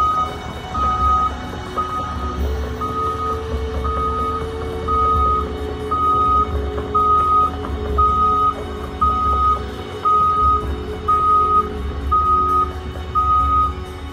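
Caterpillar excavator's warning alarm beeping about once a second at one steady pitch, over the low running of its diesel engine.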